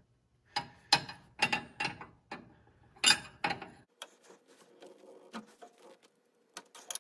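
Steel combination wrench clicking and clinking against a hydraulic line fitting as it is worked in short strokes: a quick run of about ten sharp metallic clicks over the first few seconds, then a few lighter ticks and two more clicks near the end.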